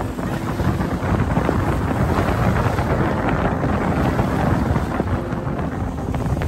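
Wind buffeting the microphone as a dense, low rumble, over small lake waves washing and breaking onto a sandy shore.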